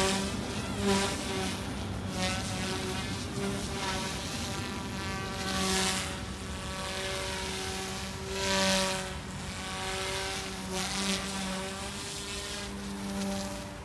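OMPHOBBY M2 Explore electric RC helicopter in flight, its main rotor and motor giving a steady whine of several tones. It swells louder with slight shifts in pitch about a second in, around six seconds and near nine seconds as the helicopter moves close and turns.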